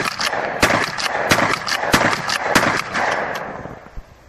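Pump-action shotgun fired in rapid succession, about five shots roughly two-thirds of a second apart, the sound ringing on between shots and dying away in the last second.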